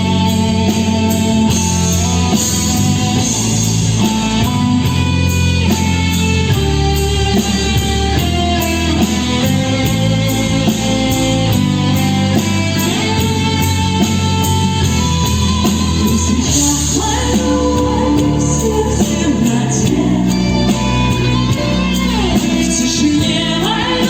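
Pop song played by a band, with guitar, a steady beat and a woman singing.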